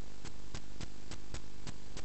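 Sewer inspection camera rig as its push cable is pulled back through the pipe: a steady electrical hum with sharp, evenly spaced clicks about four times a second.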